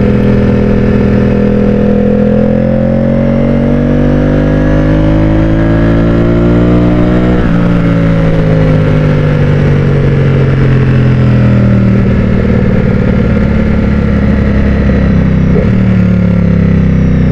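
Ducati Streetfighter V4's V4 engine pulling up through the revs under acceleration; the pitch drops suddenly about seven seconds in as it shifts up. It then winds down slowly on engine braking as the bike slows, with a downshift near the end. Wind rushes over the microphone throughout.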